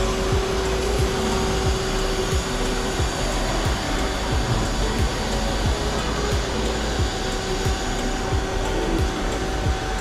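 Vacumi VC3 water-filter canister vacuum cleaner running steadily as its floor head is pushed back and forth over carpet.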